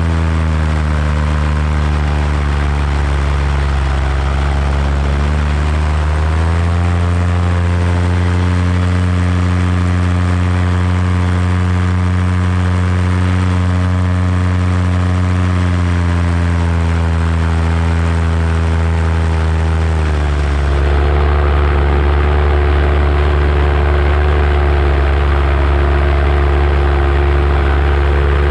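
Paramotor engine and propeller running steadily in flight. The engine pitch dips slightly about four seconds in, rises again a couple of seconds later, and shifts again about twenty seconds in as the engine speed changes.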